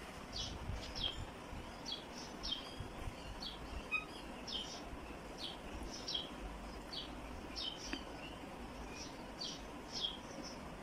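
A small bird chirping over and over: short, high, falling chirps, about two or three a second and often in pairs. Faint low rustling and handling noise lies underneath.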